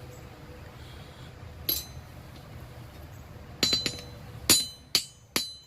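Hand hammer planishing a hot mild-steel block on an anvil: single ringing metallic strikes, one alone, then a quicker run of five or six in the last two seconds, over a steady low hum.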